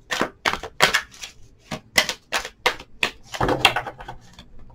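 Tarot cards being shuffled by hand: a quick, irregular run of crisp card slaps and clicks, about three or four a second.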